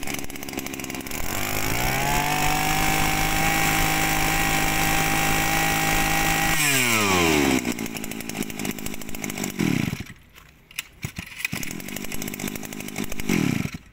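Small two-stroke Shindaiwa brush cutter engine running: it is revved up to full throttle about a second in and held there for about five seconds. It is then let back down to an uneven idle, with short throttle blips later on and a brief drop in sound about ten seconds in.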